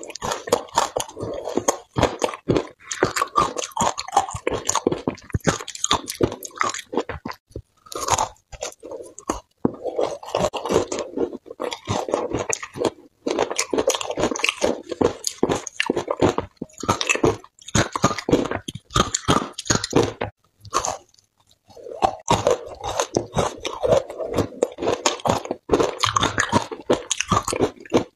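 Frozen shaved ice coated in matcha powder being bitten and chewed: dense runs of crisp crunching, broken by a few short pauses, the longest about 21 seconds in.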